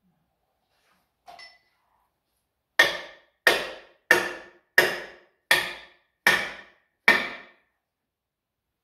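Seven hammer blows, evenly spaced about two-thirds of a second apart, each ringing briefly as it dies away. A faint clink comes about a second before the first blow.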